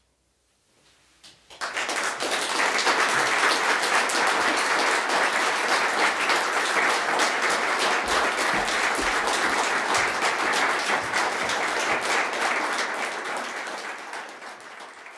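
Audience applauding, starting suddenly about a second and a half in after a near-silent pause, a dense steady clatter of many hands that fades out near the end.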